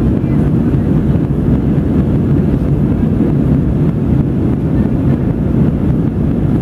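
Steady low rumble of engine and airflow noise inside the passenger cabin of an Airbus A320 in the air just after takeoff, even and unbroken.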